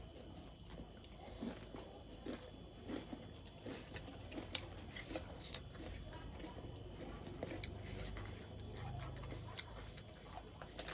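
Close-miked chewing and biting of food: irregular wet mouth smacks with small crunches.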